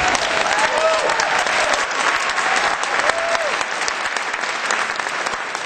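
Convention audience applauding, dense clapping with a few short voices calling out over it about a second and three seconds in; the clapping thins out toward the end.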